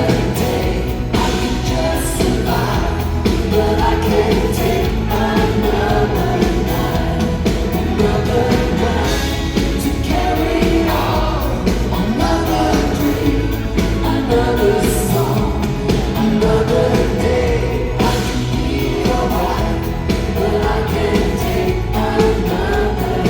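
Male pop singer performing live, singing over amplified band accompaniment.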